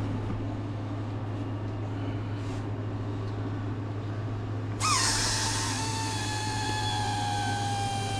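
A steady low hum, then about five seconds in a sudden rush of compressed air with a whistling tone that slowly falls in pitch, as air is forced into a tubeless bike tire.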